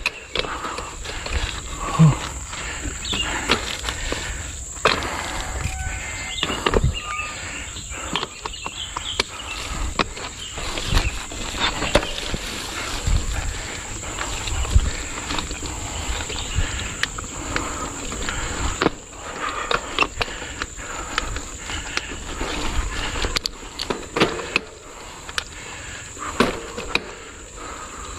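Mountain bike climbing a rough dirt trail, its frame and parts rattling and knocking over the bumps throughout. A steady high drone of insects runs underneath.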